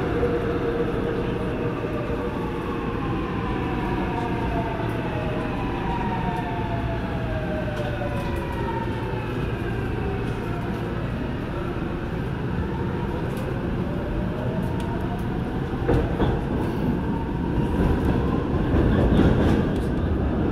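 Subway train running through a tunnel: a steady rumble of wheels on rail under the electric traction motors' whine. The whine falls in pitch over the first half as the train slows, then rises again from about two-thirds in as it picks up speed, and the rumble grows louder near the end.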